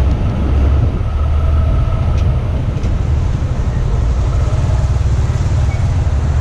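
Motorcycle riding slowly in city traffic, heard through a helmet-mounted microphone: a steady low rumble of engine and wind buffeting on the microphone.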